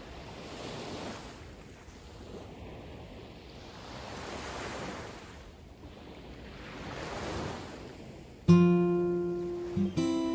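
Small waves breaking and washing up a sandy beach, the surf swelling about every three seconds. Near the end, acoustic guitar music comes in suddenly and much louder.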